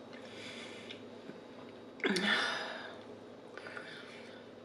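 A woman breathing audibly between bites: a soft exhale, then a louder sigh with a brief voiced, falling tone about two seconds in.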